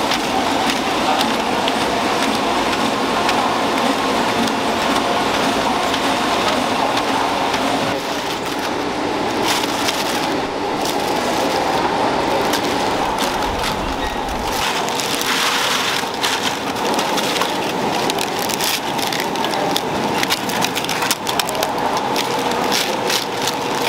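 Snack-factory packaging machinery running steadily, with many small clicks and crackles as plastic snack packs and crisp seaweed rolls are handled.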